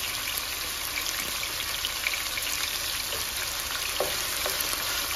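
Chicken thigh pieces sizzling in hot vegetable oil in a pan on high heat: a steady frying hiss with small pops and spits. About four seconds in there is a light knock as a wooden spoon goes in to stir them.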